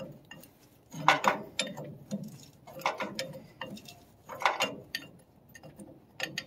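A string of irregular metallic clicks and clinks from a wrench working the heat-loosened leaf spring shackle bolt as it is twisted out of its rubber bushing.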